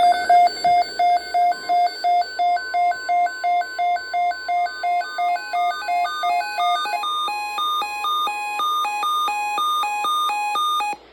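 Weather radio receiver's electronic alert alarm beeping, signalling an incoming warning broadcast. It beeps at one pitch about two and a half times a second, switches to alternating high and low beeps about two-thirds of the way in, then cuts off suddenly near the end.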